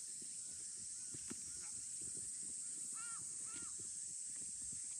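A crow cawing: a couple of faint caws about a second in, then two clearer caws about three seconds in, over a steady high hiss.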